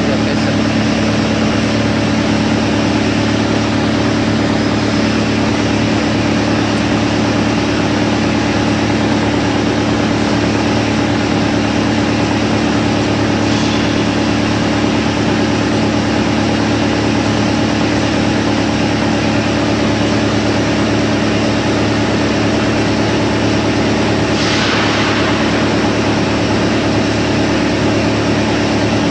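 YMPJ-218 drum wood chipper running steadily, a loud continuous machine hum with several steady tones. A brief rushing noise rises over it about three quarters of the way through.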